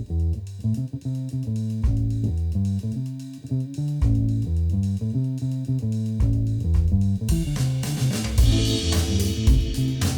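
Background music: a plucked bass line and drums, with more instruments coming in about seven seconds in.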